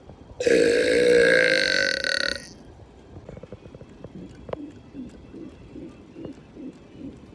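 A man's long, loud, deliberate burp lasting about two seconds, starting about half a second in.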